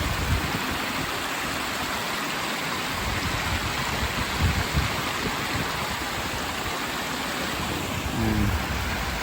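Steady rush of water from a small waterfall on a woodland stream that is running high. A few brief low thumps come about four and a half seconds in.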